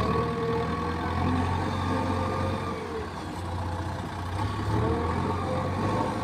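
Diesel engine of heavy earthmoving or farm machinery running steadily, with a few higher tones drifting slightly in pitch over the low hum.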